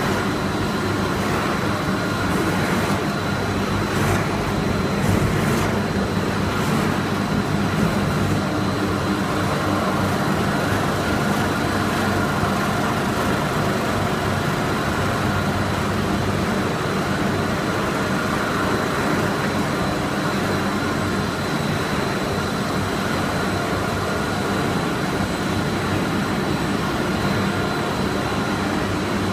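Snack pellet extrusion line machinery running steadily: a continuous mechanical hum with constant whining tones over it, and a few faint clicks in the first several seconds.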